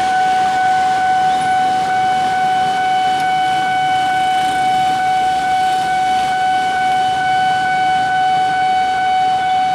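Level-crossing warning alarm sounding one steady, unbroken electronic tone, over traffic noise.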